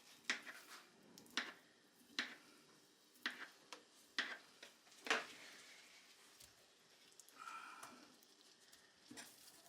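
Knife cutting raw potatoes into smaller pieces, with sharp, irregular knocks of the blade against the board.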